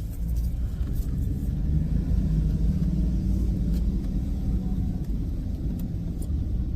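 Chrysler Crossfire's 3.2-litre V6 and road noise heard from inside the cabin while driving: a steady low rumble, the engine note swelling a little a couple of seconds in.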